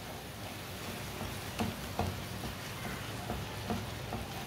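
Wooden spatula stirring and pressing thick semolina paste as it cooks in a nonstick pan, with a few soft knocks of the spatula against the pan.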